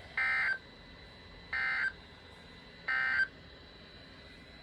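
Emergency Alert System end-of-message tones from a National Weather Service broadcast: three short bursts of SAME digital data, a buzzing screech about half a second each and just over a second apart, signalling that the warning has ended.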